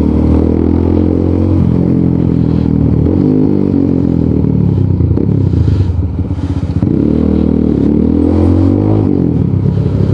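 Rusi Sigma 250 motorcycle running through an aftermarket LeoVince muffler while riding on the road. The engine note eases off and drops about six seconds in, then rises and falls again near the end.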